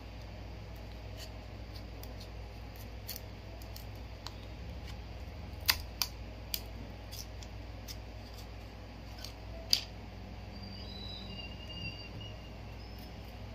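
Clear plastic protector sheet and a smartphone being handled, giving scattered clicks and ticks, with a few sharp snaps about halfway through and another a few seconds later, over a steady low hum.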